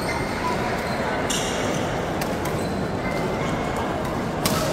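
Badminton rally: a few sharp racket-on-shuttlecock hits, the clearest about a second in and near the end, over the steady chatter and noise of a sports hall.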